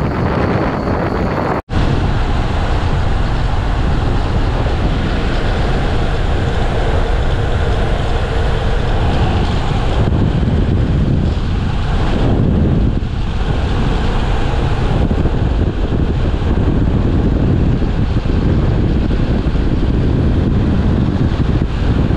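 Wind buffeting the microphone of a moving car, over the car's road noise. The sound cuts out for an instant just under two seconds in, then carries on.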